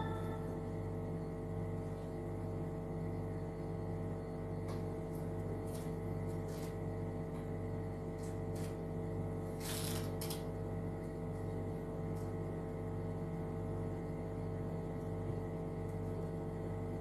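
A steady hum made of several held tones, with a slow regular throb in the lowest one, and a few scattered light clicks near the middle.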